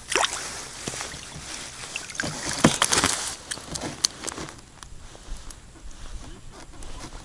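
Knocks, wet slaps and rustling as a freshly caught small bream is lifted out of a hole in the ice and laid on the ice. The loudest knocks come a couple of seconds in, with a sharp click about four seconds in.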